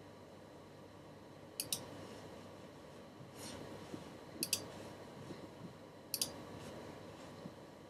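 Three sharp double clicks, a few seconds apart, over quiet room tone.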